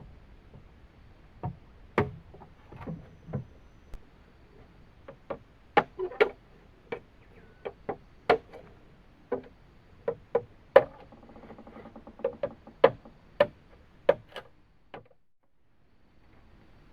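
Irregular hollow knocks and clacks of bamboo being handled and struck, more than a dozen at uneven spacing, with a short creak partway through. The knocking cuts off suddenly near the end.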